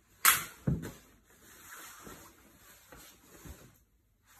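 Padded fabric apron cover on a pram seat unit being folded and fitted by hand: two sharp knocks less than a second in, the first the loudest, then quieter rustling that dies away near the end.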